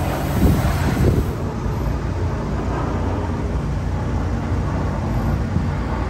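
Jet airliner flying low overhead, its engines a steady noise throughout.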